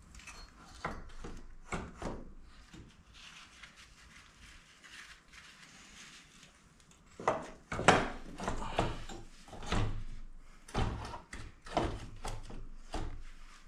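Irregular knocks and clatter of hand tools working on a KTM dirt bike's engine during disassembly, sparse at first and coming thick and fast through the second half.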